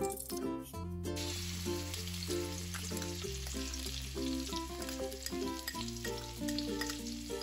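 Hot cooking oil sizzling in a wok, starting about a second in and continuing steadily, under background music.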